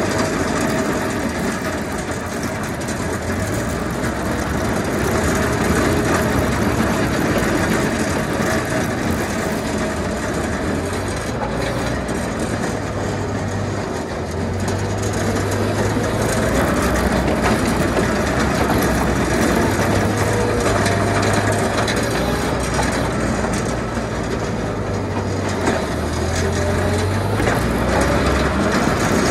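Loader's engine running steadily under load while a front-mounted PCME V-plow scrapes packed snow and ice along the road surface, the engine hum rising and falling a little with the work.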